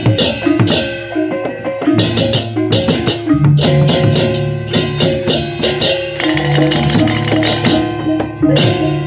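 A Balinese baleganjur gamelan ensemble playing: clusters of clashing cengceng hand cymbals over kendang drums and the low ring of hanging gongs. The cymbal clashes come thick and fast, and a deep gong tone swells a few seconds in.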